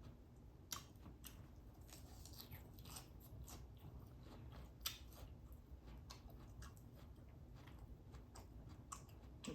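A person chewing food, with a scatter of soft crunches and wet mouth clicks; one click about five seconds in stands out.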